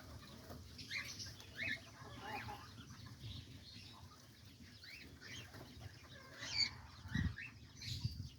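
Faint, scattered short chirps and calls from aviary birds, with a soft thump about seven seconds in.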